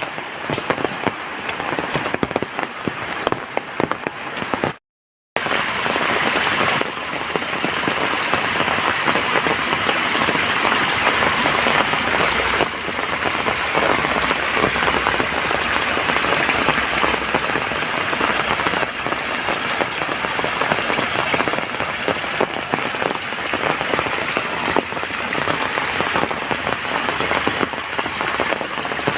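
Heavy rain falling in a dense, steady patter of drops. It cuts out completely for about half a second some five seconds in, then returns a little louder.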